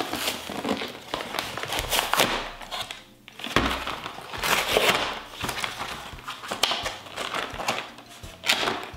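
Paper toy packaging being pulled apart and crinkled by hand: irregular rustling and crackling, with a few sharper tearing and snapping sounds.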